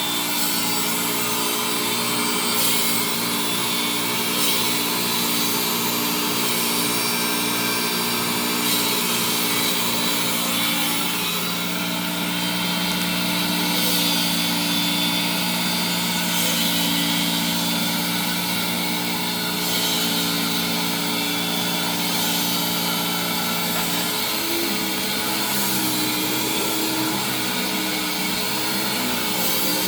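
Hoover Windtunnel canister vacuum running on its low setting with a Eureka power nozzle, its brush roll spinning on carpet. The steady motor hum shifts in pitch about 11 seconds in and again near 24 seconds.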